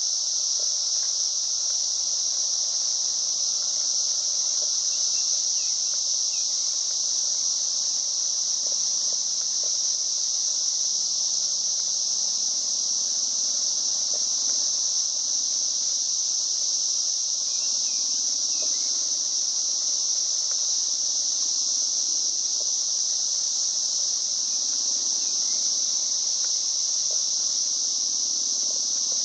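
A steady chorus of insects: one continuous, high-pitched drone that holds at the same level throughout, with a few faint ticks under it.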